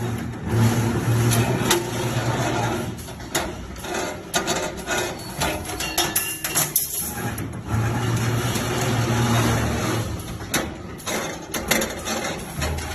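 CNC steel bar stirrup bending machine running. Its motor hum swells twice for a few seconds each time, with clicks and metal knocks from the bar feed and bending head throughout.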